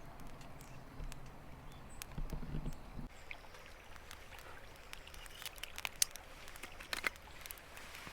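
Scattered light clicks and small knocks of kindling and firewood being handled to build a campfire, with a low muffled rumble in the first few seconds.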